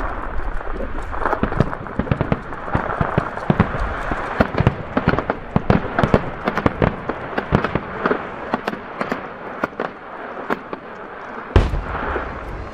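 Aerial fireworks shells bursting: a rapid run of bangs and crackle that thins out, then one loud bang about a second before the end.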